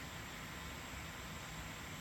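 Bambu Lab A1 mini 3D printer making a steady whirring hiss with a faint thin tone, the unexplained noise it makes while failing to print.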